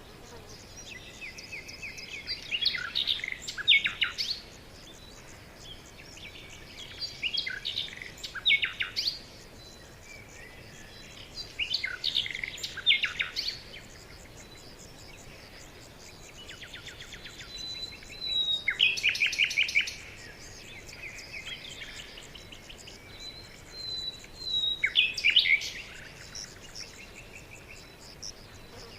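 Songbirds singing: one bird repeats a short song of quick trills and sweeping notes every four to six seconds, about five times, with thin high notes in between.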